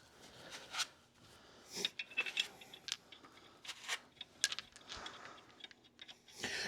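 Scattered light clicks, scrapes and rubs of a spline drive lug-nut socket and other hand tools being handled, with no machine running.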